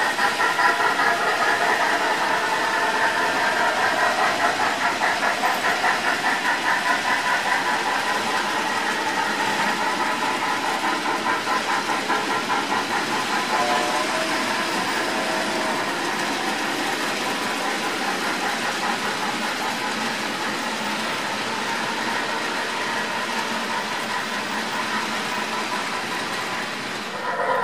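HO-scale model freight train rolling over the layout's track with a steady rumble. Under it runs the sound-decoder steam exhaust of the Erie 2-8-8-8-2 Triplex, a rhythmic beat of about three a second that fades over the first half.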